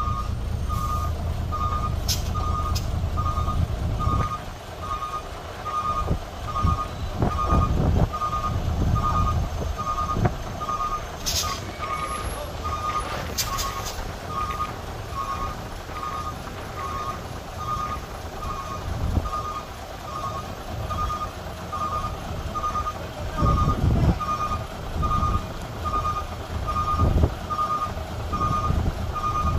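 A truck's reversing alarm beeping steadily, about one beep every 0.8 seconds, over a truck engine running low. The engine is loudest for the first few seconds and swells briefly a few times later.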